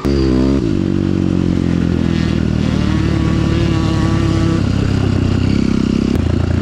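Single-cylinder enduro motorcycle engine heard close up, running under load. Its revs drop in the first half-second, then the note holds steady, changing slightly near the end.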